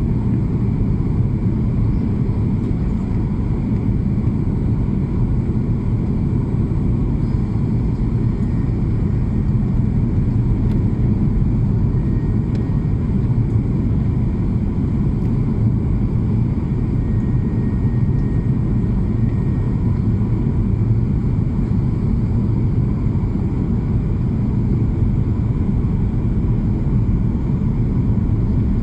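Steady low rumble of an airplane in flight, unchanging throughout, as heard from inside the cabin.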